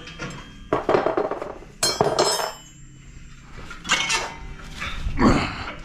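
Metal tools clinking and knocking against a motorcycle wheel during a tire change: four or five separate strikes, one with a short metallic ring about two seconds in.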